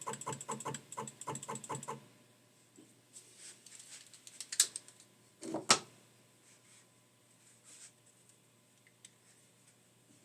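Rapid keyboard or mouse clicking, about seven even clicks a second for two seconds, then scattered taps and two louder knocks, with little after about six seconds in.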